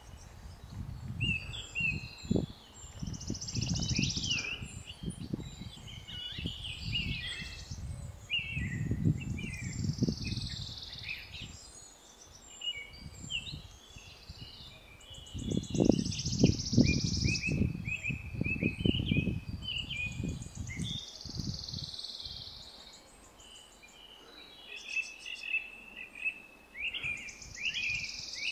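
Small birds chirping and trilling in quick, short notes throughout, over an irregular low rumble that comes and goes and dies away about three-quarters of the way through.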